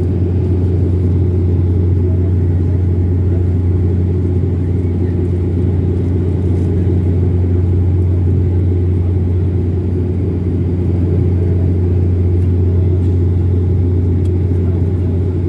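Airliner cabin noise in cruise flight: a loud, steady drone of engines and airflow with one strong low hum that holds constant throughout.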